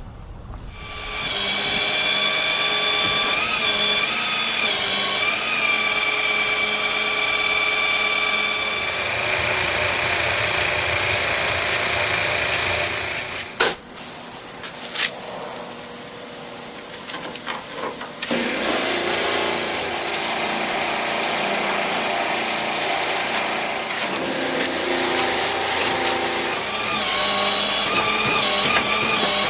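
A power tool running steadily with a high whine, slowing and stopping briefly with a couple of clicks about halfway through, then running again.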